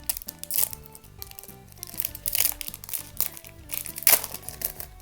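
Digimon trading-card booster pack wrapper crinkling and being torn open in several crackly bursts, the loudest a little after four seconds in, over steady background music.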